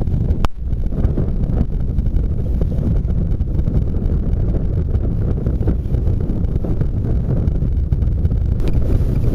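Wind rumbling steadily across the microphone aboard a sailing yacht under sail, a loud low-pitched roar with no engine note standing out. A sharp click and a brief dropout about half a second in.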